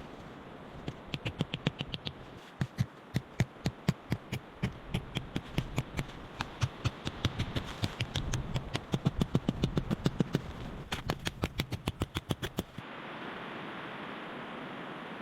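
A rapid run of sharp knocks or taps, several a second in bursts, over a faint background hiss; about thirteen seconds in they stop and give way to a steady windy hiss.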